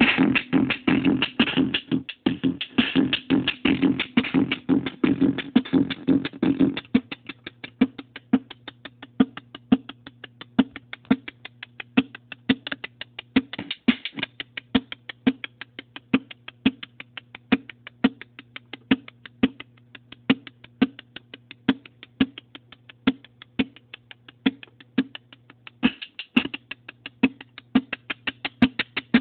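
Korg Monotribe's analog drum pattern played through a circuit-bent Yamaha computer speaker whose gain/distortion pots give it a crunchy, intense sound. The first seven seconds are dense and heavily distorted. Then it thins to a steady run of sharp clicky beats over a low steady tone, swelling briefly near the end.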